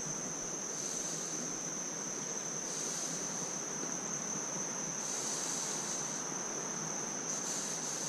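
Steady high-pitched insect trill, typical of crickets, over the constant rush of flowing creek water. A brighter hiss swells up briefly four times.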